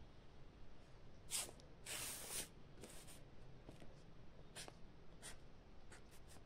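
Writing on paper by hand: faint, separate scratching strokes, the longest and loudest one about two seconds in.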